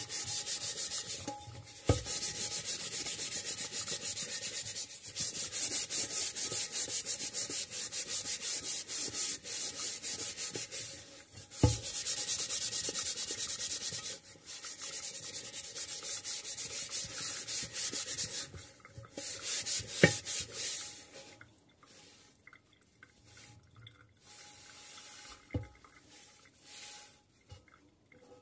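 Microfiber dish cloth scrubbing a frying pan and its glass lid with cleaning paste: quick, steady rubbing strokes with a hissy scrape, broken by a few sharp knocks. The rubbing grows quieter and sparser about two-thirds of the way through.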